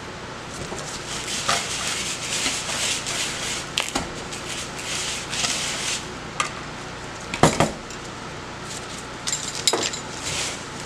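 Coarse Epsom-salt bath-salt mixture being stirred and whisked with a wire whisk in a plastic bowl: a run of gritty scraping swishes, with a sharp knock about seven and a half seconds in and a few lighter clicks.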